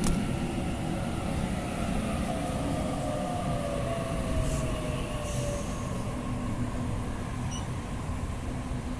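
Waratah electric train's traction motors whining down in pitch as it slows to a stop at the platform, with the car's steady hum underneath. The whine fades out a little past halfway, after two short high hisses.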